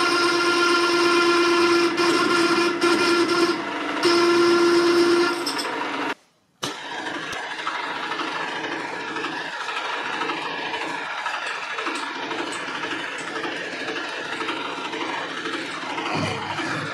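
Slitting saw on a milling machine cutting a slot in square bar stock. First a totally dull blade gives a loud, steady squeal with ringing overtones; then, after a brief gap, a half-decent blade cuts with a rougher, noisier rasp and no squeal.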